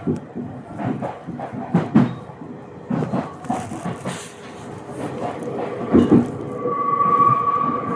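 Electric train standing at a platform: irregular knocks and clatter, joined about six and a half seconds in by a steady two-note electric whine from the train's equipment.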